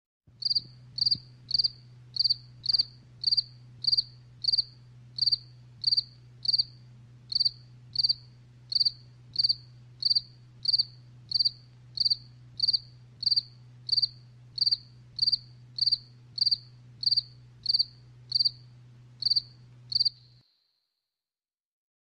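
A cricket chirping: a long run of short, high chirps, evenly paced at roughly one and a half to two per second, stopping about two seconds before the end.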